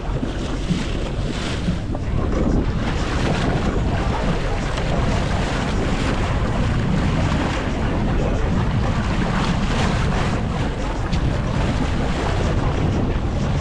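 Wind buffeting the microphone over sea water washing along the hull of a sportfishing boat, with a steady low rumble underneath.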